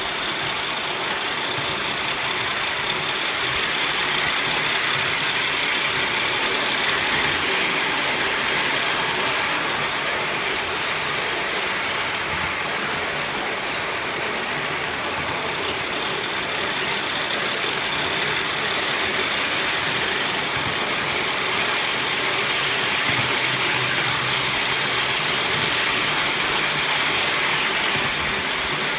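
LBSC Heilan Lassie 3.5-inch gauge live steam locomotive running steadily under steam, its exhaust and wheel-on-rail noise blending into an even rush.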